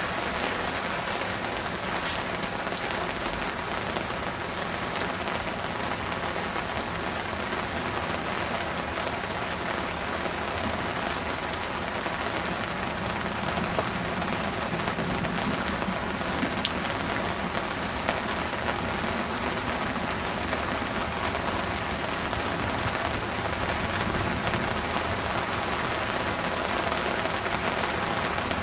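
Heavy rain pouring steadily in a thunderstorm downpour, with now and then a sharper drop hit standing out.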